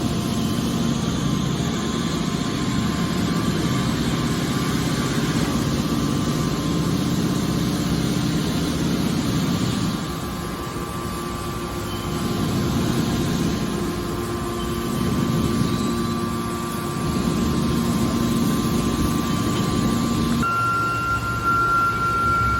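Hydraulic scrap-metal baler running: a steady mechanical hum from its hydraulic power unit, whose load and tone shift a couple of times as the press works. A steady high whine joins near the end.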